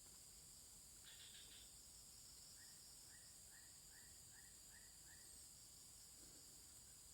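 Faint outdoor ambience: a steady high insect drone, with a bird calling a quick run of six short chirps in the middle.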